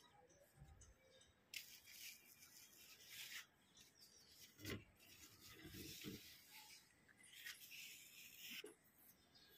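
Near silence, with faint rustling and a few soft bumps from a handheld phone being moved close among the plant leaves.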